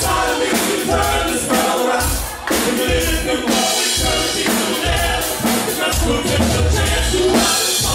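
Live dance band playing an 80s freestyle number with synthesizer keyboard, bass and drum kit keeping a steady beat, and a singer on vocals.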